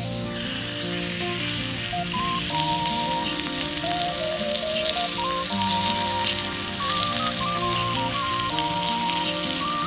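Food frying and sizzling in a hot pan, starting suddenly and then holding steady. A plucked-string background melody plays over it.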